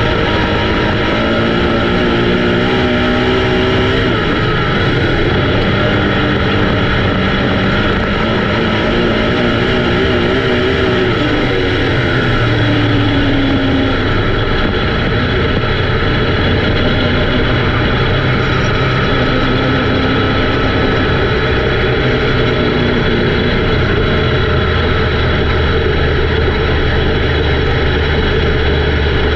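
Race car engine running hard and continuously, its pitch rising and falling with the throttle.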